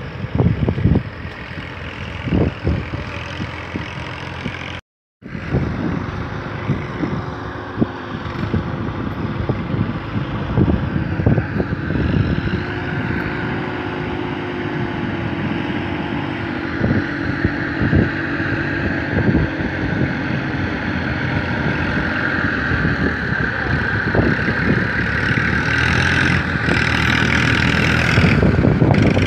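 Tafe 45DI tractor's diesel engine running steadily at work in deep mud, with scattered knocks and clatters, growing louder towards the end. The sound cuts out briefly about five seconds in.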